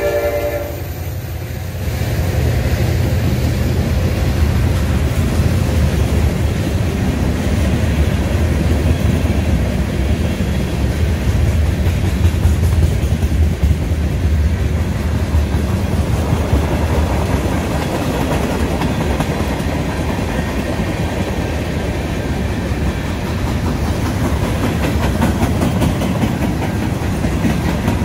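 Freight train's cars rolling past close by: a loud, steady rumble and rattle of steel wheels on the rails, dipping briefly in the first couple of seconds as the last locomotive gives way to the cars.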